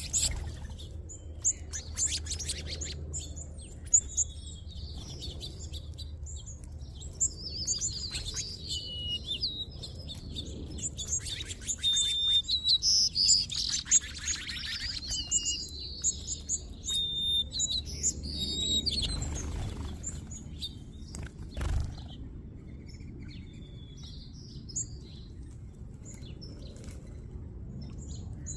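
A mixed flock of small seed-eating birds chirping and twittering, many short, high calls overlapping, busiest about halfway through, with a few sharp clicks and a low steady hum underneath.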